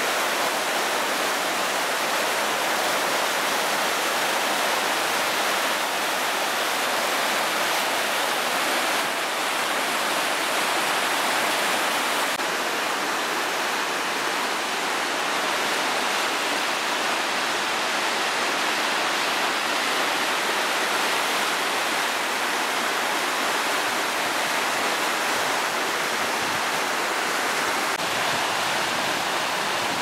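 River water rushing through whitewater rapids and over rocks, a steady, even roar.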